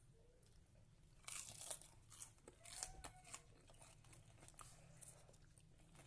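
Crunching and crackling of a crispy fried vegetable fritter (bakwan): a dense run of sharp crisp crackles about a second and a half in, lasting about two seconds, then a few fainter ones.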